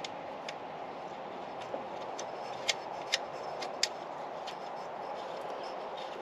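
Scattered sharp metallic clicks from a socket ratchet driving an alternator mounting bolt into its re-tapped thread, over a steady background noise.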